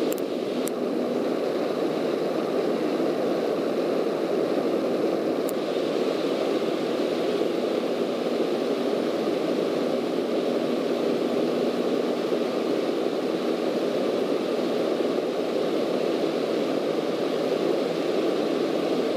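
Steady drone of a single-engine Cessna's piston engine and propeller in flight, heard from inside the cockpit, mixed with airflow noise.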